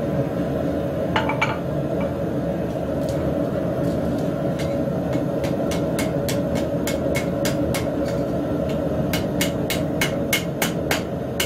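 Blacksmith's hammer striking hot steel on an anvil: a couple of blows about a second in, then sparse strikes building into a regular run of about four ringing blows a second in the last few seconds. A steady low rushing noise runs underneath.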